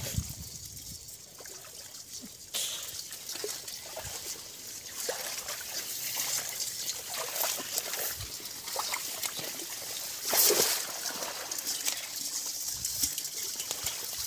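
Water trickling and splashing as a hoop hand net and hands are worked through shallow water thick with water hyacinth, with crackly rustling of the weeds; a louder splash comes about ten seconds in.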